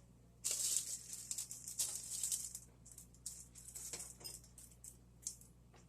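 Kitchen handling sounds while mixing food: a few seconds of irregular light rustling and small clicks, ending about a second before the end.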